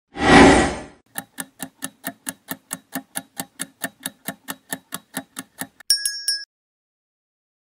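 Quiz sound effects: a whoosh, then a countdown timer ticking evenly, about four to five ticks a second for nearly five seconds, ending in a bright chime that marks the answer reveal.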